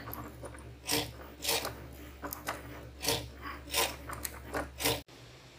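Cricut Maker cutting machine running its last cuts: a steady low motor hum with short strokes of the blade carriage every half second or so. Everything stops suddenly about five seconds in as the cut job finishes.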